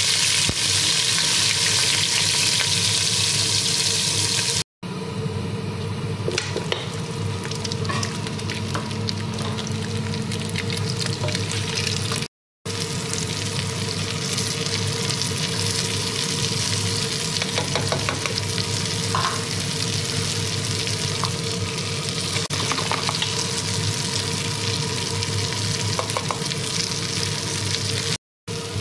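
Diced onions sizzling in hot oil in a cooking pot, then beef and potato chunks frying, stirred now and then with a wooden spoon with faint scraping ticks. The sizzle is loudest and hissiest for the first few seconds, and the sound cuts out briefly three times.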